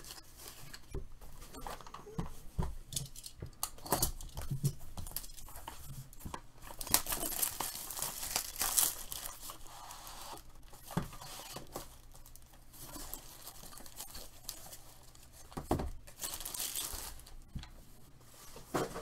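Clear plastic shrink-wrap being torn and crinkled off a sealed box of trading cards, loudest in two stretches, with scattered clicks and taps of the box and cards being handled.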